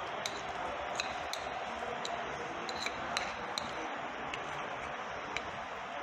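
Metal spoon clicking and scraping against a glass bowl as soft cooked coconut burfi mixture is scooped out onto a glass plate: light, irregular clicks over a steady background hiss.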